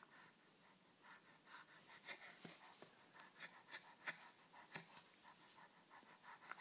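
Near silence, with faint soft clicks and short breathy rustles scattered through.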